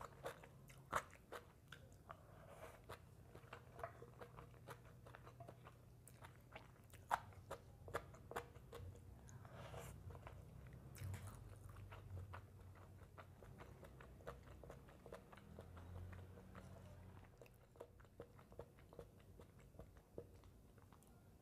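Close-miked chewing and crunching of a mouthful of papaya salad, fried fish and rice, with many irregular sharp wet mouth clicks, the loudest about seven seconds in.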